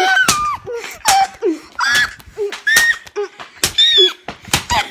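A child being smacked in a spanking: rapid sharp smacks, about two a second, each followed by a short high yelp.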